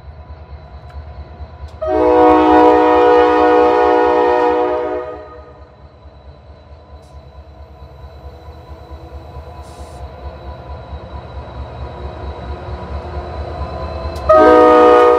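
Norfolk Southern diesel locomotive's air horn sounding a blast of several notes together, lasting about three seconds, over the low rumble of the engine. The rumble grows louder, and a second horn blast starts near the end.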